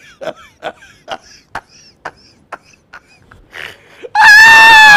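A man laughing hard: a run of short breathy gasps, then about four seconds in a loud, high-pitched wail of laughter held for nearly a second.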